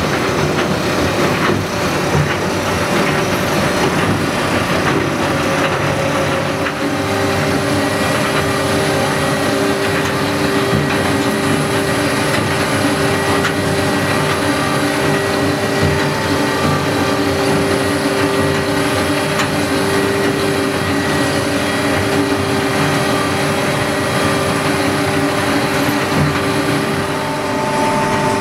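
Tractor engine running steadily while working a Loewen Honey-Loader to scrape up and load dairy manure. A steady whine joins in about seven seconds in.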